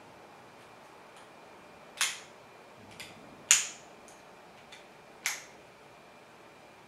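Sharp clicks and knocks from a Sirui SUP204SR aluminium monopod's tilt joint and fold-out feet being worked by hand. Three louder clicks come about a second and a half to two seconds apart, the middle one loudest, with a few fainter ticks between.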